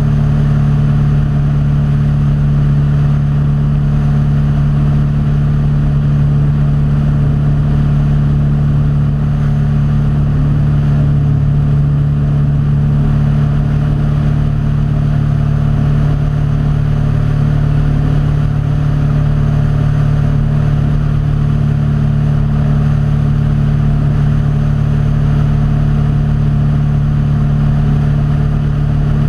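Small aircraft's engine droning steadily in flight, a constant low hum with wind noise, heard through a GoPro mounted on the aircraft.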